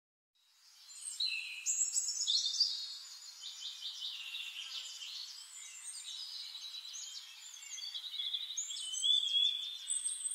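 Birds chirping and trilling: many overlapping high-pitched calls and quick trills, starting after a brief silence.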